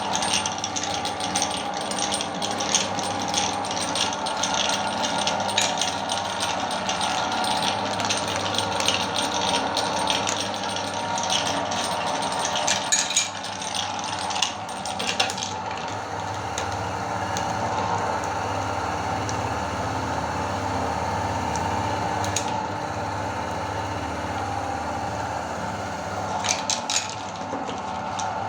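Electric meat grinder running with a steady motor hum while hard candy cracks and rattles in it. The crunching is dense for about the first fifteen seconds, then thins out, leaving mostly the motor, with a few more cracks near the end.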